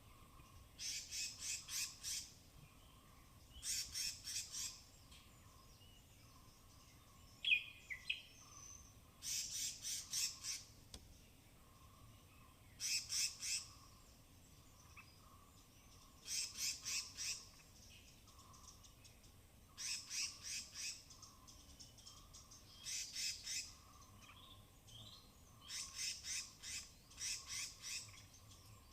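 Forest squirrel alarm chatter: bursts of four to six rapid, high-pitched chips, repeated about every three seconds. A single sharper call breaks in about seven seconds in.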